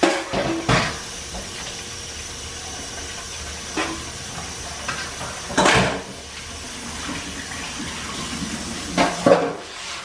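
Beaten eggs sizzling in a hot frying pan, a steady hiss, with a few brief louder knocks.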